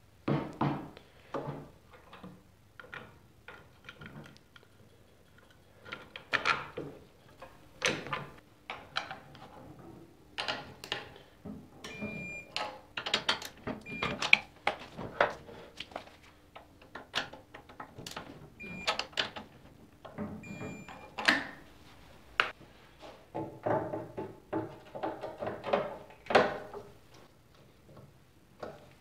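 Hand tools and metal parts being worked: irregular clanks, knocks and clicks as a steel rear chain sprocket is fitted onto the axle hub of a Honda ATC 90 trike and its bolts are tightened with a wrench.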